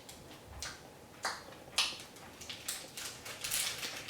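Close-up eating sounds of a chocolate bar with peanuts being chewed: short, irregular mouth smacks and clicks, two or three a second.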